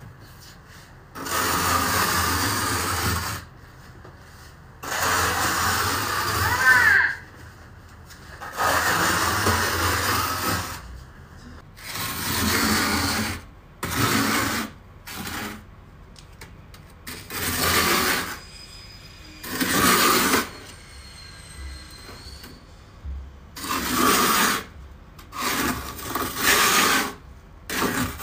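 Plastic spatula scraping thick, fluffy frost off the inside wall of a chest freezer, in repeated scraping strokes. The strokes last about two seconds each at first, then come shorter and quicker in the second half.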